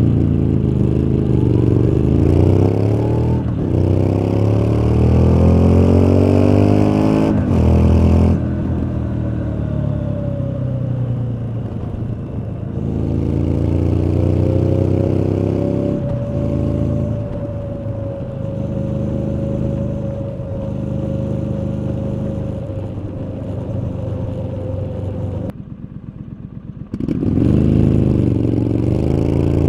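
2019 Triumph Street Scrambler's 900 cc parallel-twin exhaust, accelerating hard with rising pitch through two gear changes, then easing off and cruising with a long steady tone. Near the end it goes much quieter for about a second and a half, then rises again as the bike pulls away.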